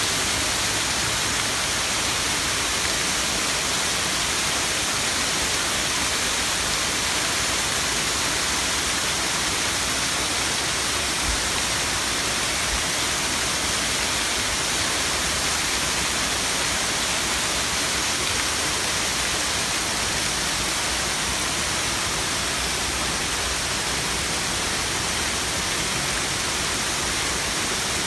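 Waterfall cascading over rock ledges: a loud, steady rushing hiss of falling water.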